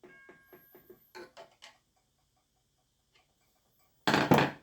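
Western Railroad Supply mechanical railroad crossing bell, running on a 9 V battery, striking slowly and weakly: a ringing stroke at the start, then a few lighter clacking strokes, then it falls nearly still. The slow, weak ringing comes from a rust-stiffened mechanism only just freed up. About four seconds in, a loud, brief noisy bump like handling.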